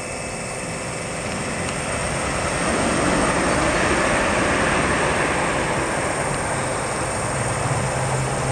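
Class 66 diesel freight locomotive, with its two-stroke V12 engine, approaching on the main line: a broad rumble that grows over the first few seconds, joined by a steady low engine hum about six and a half seconds in.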